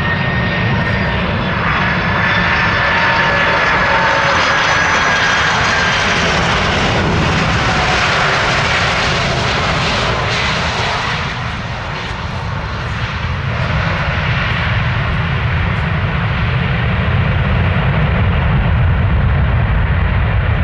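Boeing 747 freighter's four jet engines on final approach: a steady rumble with a high whine sliding slightly down in pitch as it passes. After a brief lull about halfway through, the rumble swells again as the jumbo rolls out on the wet runway, its reverse thrust spooling up.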